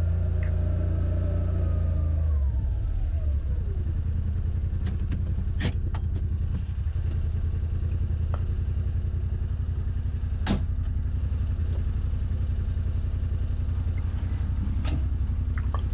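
Yamaha RMAX side-by-side's engine running as it drives, easing off about two and a half seconds in while a whine falls in pitch. A few sharp clicks sound over the steady hum later on.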